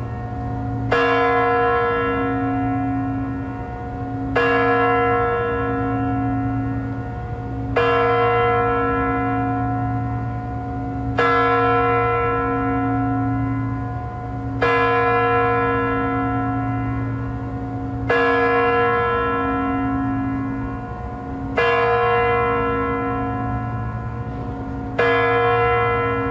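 Spasskaya Tower clock bell of the Moscow Kremlin striking midnight: eight slow, even strokes about three and a half seconds apart, each ringing out and dying away over a low lingering hum.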